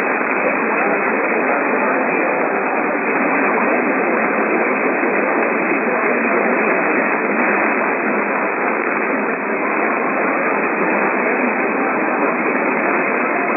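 Radio static: a steady hiss from a radio receiver with no signal coming through.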